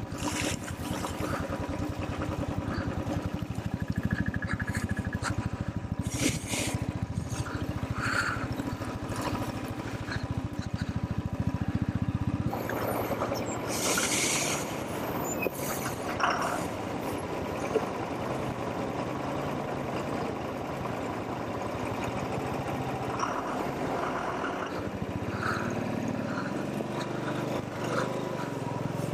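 Motorcycle engine running as the bike is ridden, its steady pulsing note dropping away and changing about twelve seconds in, with a short burst of hiss a little later.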